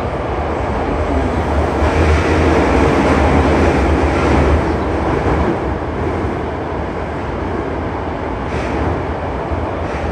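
Hankyu 8300 series electric train running through a subway tunnel, heard from inside the car: a loud steady rumble of wheels on rail with a hiss that eases a little about halfway through.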